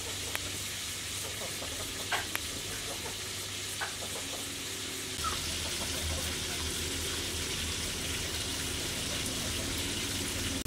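A cleaver scraping and peeling the skin off pale vegetable stalks over a wooden cutting board, with a few light knife ticks in the first few seconds.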